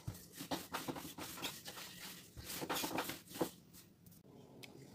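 Wooden rolling pin rolled back and forth over floured dough on a table: irregular scraping and rustling strokes that thin out after about three and a half seconds.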